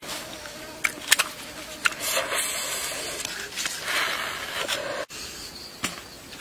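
Scraping and peeling the charred rind off roasted pumpkin pieces by hand, a rough scraping stretch in the middle with a few sharp clicks and taps before and after.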